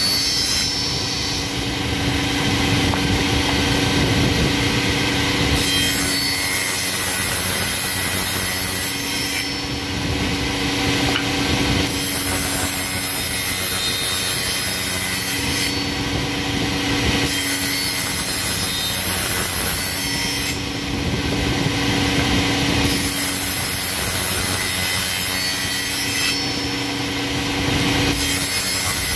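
Bench spindle moulder running with a steady motor hum while its cutter shapes tenons on the end of a board. The cutting noise comes and goes as the wood is fed past the cutter in repeated passes of a few seconds each.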